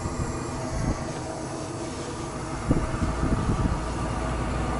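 Propane hissing from a leak somewhere in the LPG conversion system of a GAZelle's engine bay, over a steady low hum, with a few short knocks as the hoses are handled. The leak comes with a strong smell of gas and a gas system that won't run the engine.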